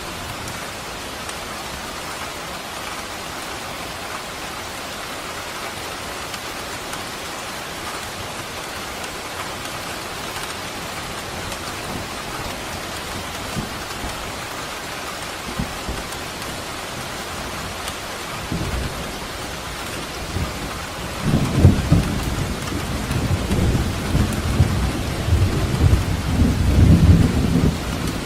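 Steady rain hissing down on surfaces. About two-thirds of the way in, a deep rumble of thunder builds and stays loud to the end, with several louder peaks.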